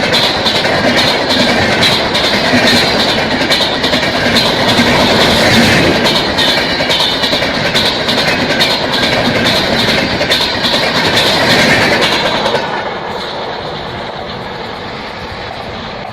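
LHB passenger coaches of an express train rushing past at speed, wheels clattering rhythmically over the rail joints. About twelve and a half seconds in the clatter falls away and the sound fades as the end of the train passes.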